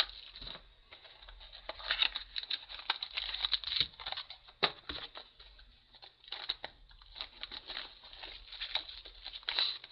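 Packaging crinkling and tearing in irregular bursts as a trading-card box and its wrapping are opened by hand.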